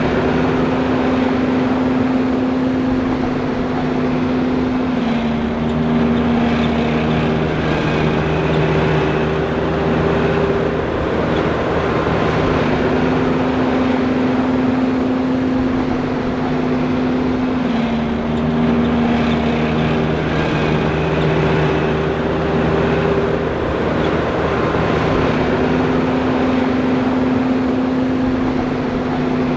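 John Deere 5820 self-propelled forage harvester running steadily. Its hum carries tones that dip slightly in pitch for a few seconds, about every twelve seconds.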